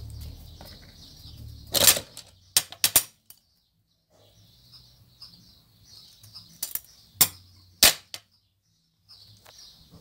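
A few sharp clicks and taps of small crafting things being picked up and set down on a table top, the loudest about two seconds in and more near the end, over faint high chirping.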